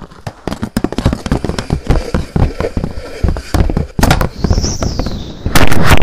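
Sound effects of an animated Rube Goldberg mousetrap: a rapid, irregular clatter of knocks and pops as balls run through the contraption. A faint rising-then-falling whistle comes about four and a half seconds in, and a louder steady noise takes over from about five and a half seconds.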